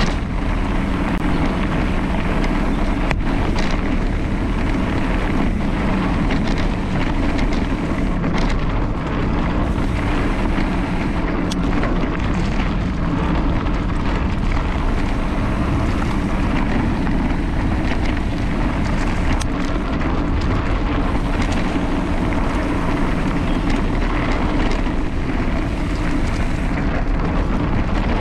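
Mountain bike ridden fast down a rough trail: steady rolling and rattling noise mixed with wind buffeting the microphone, with a few sharp knocks from bumps.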